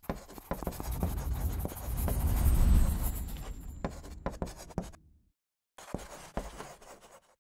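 Chalk scratching and tapping on a blackboard in quick writing strokes, with a low rumble swelling up around the middle. The scratching stops for half a second a little after five seconds in, then resumes briefly.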